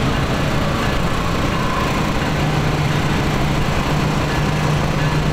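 EMD SW1500 switcher locomotive's 12-cylinder diesel engine running steadily at low throttle as the unit creeps along, a low engine drone that grows a little stronger about halfway through.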